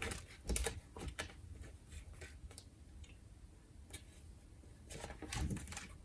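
Sticker sheets being handled: scattered light rustles and taps of paper, with a few clustered near the start and around five seconds in.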